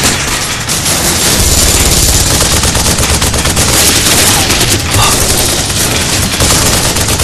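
Sustained machine-gun and rifle fire on a war film's soundtrack: a dense, unbroken volley of rapid shots.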